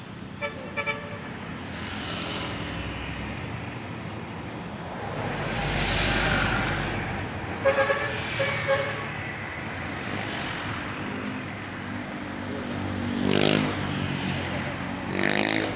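Road traffic passing: vehicles go by one after another, swelling and fading, the loudest passes about six seconds in and near the end. Three short pitched toots sound about eight seconds in.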